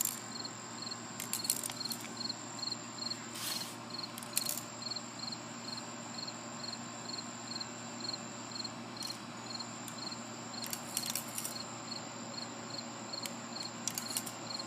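Steel BBs being poured into the loading hole of a small BB rifle, with scattered sharp clicks and rattles. Under it, a faint high chirp repeats steadily about three times a second.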